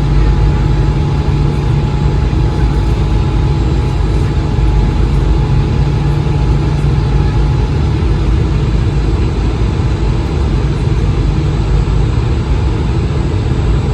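Airbus A220-300 cabin noise: the steady loud rush of its Pratt & Whitney PW1500G geared turbofans and airflow, heard from inside the cabin, with a few faint steady tones over it.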